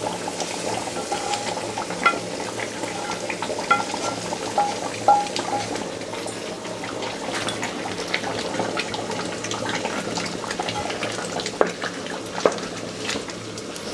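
A hot-oil tempering of fried onions and cumin tipped into a pot of simmering duck curry, hissing and bubbling, while a wooden spoon stirs and knocks against the pot and pan now and then.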